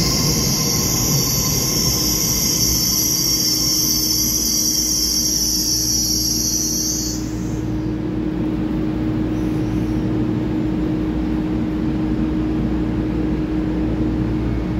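Taiwan Railway EMU3000 electric train running through an underground station. Its wheels squeal high and loud over the rail rumble for about the first seven seconds, then the squeal stops, leaving the rumble and a steady motor hum.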